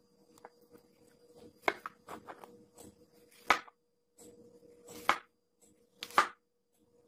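Restored butcher's knife cutting slices off an apple, the blade striking the cutting surface four times with sharp knocks and smaller crisp crunches between.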